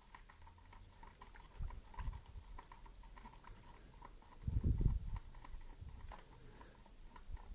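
Screwdriver working a small screw out of a plastic pump casing: faint scraping clicks and handling knocks, with a duller, louder bump about halfway through.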